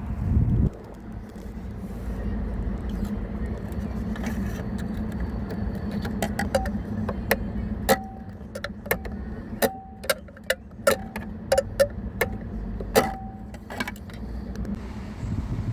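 Tesla Model 3 dashboard rattling from the cabin while driving, over steady road and tyre rumble. A run of sharp, irregular clicks and rattles, some with a brief ringing tone, comes from about six seconds in until near the end, after a single thump right at the start.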